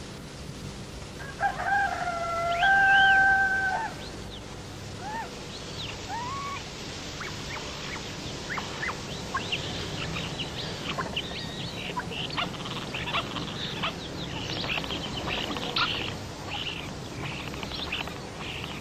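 A rooster crows once, a long pitched call of about two and a half seconds. Small birds chirp on and off after it, more densely in the second half.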